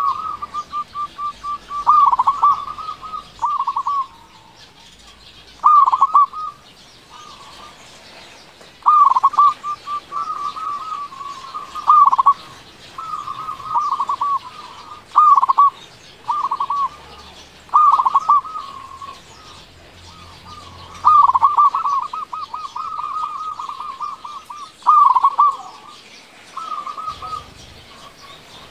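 Local zebra dove (perkutut) singing in full voice: phrases of quick, rolling coos, a new phrase every one to three seconds.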